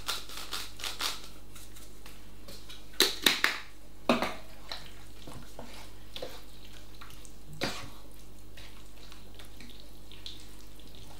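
A utensil stirring a thick, creamy chicken and leek pie filling in a pan, with soft wet scraping and a few sharp knocks against the pan: a cluster about three to four seconds in and one more near eight seconds.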